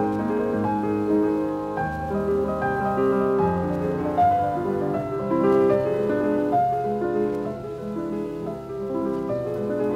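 Background piano music: a gentle melody over chords at a steady level.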